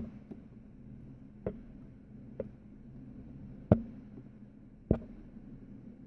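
Screwdriver driving screws into the steel case of a Baldwin mortise lock, with a handful of sharp clicks and knocks of metal on metal about a second apart, the loudest two in the second half.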